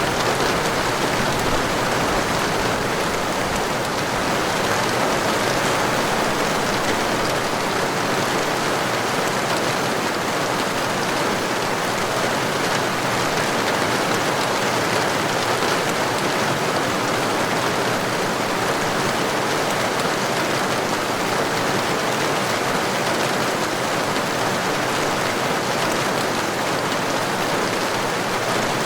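Heavy rain falling steadily, an even hiss of drops on a surface with no thunder.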